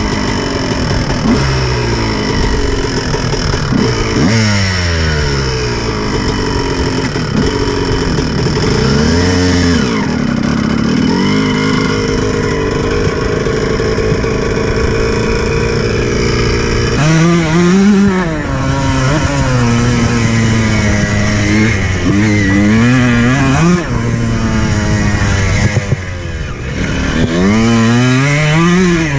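Dirt bike engine heard from on the bike as it rides, revving up and dropping back again and again with the throttle. The rises and falls come quicker and sharper in the second half, and it briefly eases off near the end before revving up again.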